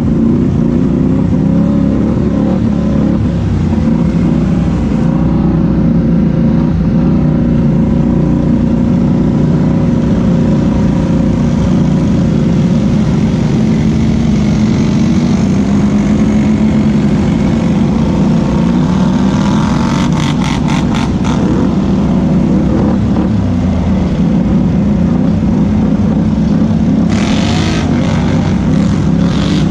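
ATV engine running while riding, its pitch wavering a little with the throttle. Short bursts of clatter come about two-thirds of the way in and again near the end.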